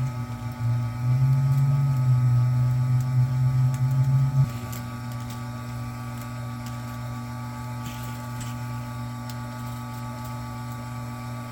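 Electric wire stripping machine's motor running. It is louder and heavier while a copper cord feeds through the rollers and blade, then drops to a steadier, lighter hum about four and a half seconds in. The blade is set deep enough that the owner thinks it is crunching down into the copper.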